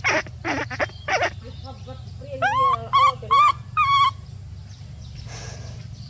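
Animal calls: a few quick, harsh cries in the first second, then four short, rising, pitched calls about two seconds in.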